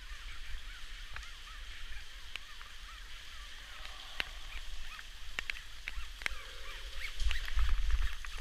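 Caving rope squeaking through the descender as the caver abseils down the shaft, in a series of short squeaks, with scattered sharp clicks of gear. A low rumble builds near the end.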